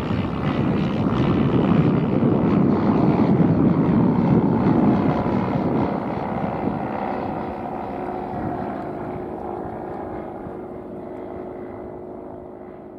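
Roland Z602 light aircraft's propeller engine running at takeoff power on a touch-and-go, loudest a few seconds in as it lifts off and passes, then fading steadily as it climbs away.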